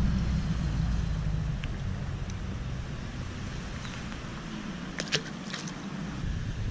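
Wind buffeting the microphone as an uneven low rumble that eases for a while near the end, with a couple of sharp clicks about five seconds in.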